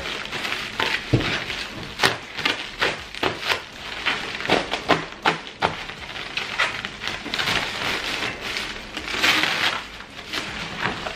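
Bubble wrap and plastic packaging rustling and crackling as it is pulled off metal turbo parts in a cardboard box, with a few sharper knocks among the crinkling, one low thud about a second in.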